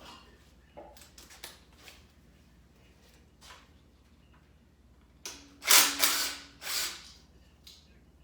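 Metal engine parts and hand tools being handled during a V8 teardown: a few light clicks and knocks, then a louder scraping, rattling stretch of about two seconds in the second half.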